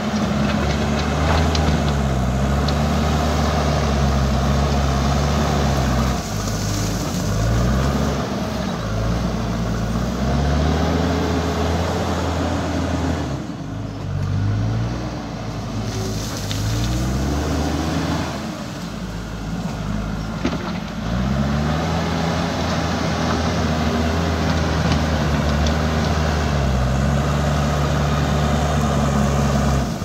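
JCB backhoe loader's diesel engine working under load as the front bucket pushes dirt, its pitch rising and falling over and over as the throttle goes up and down. The engine eases off briefly twice, around the middle.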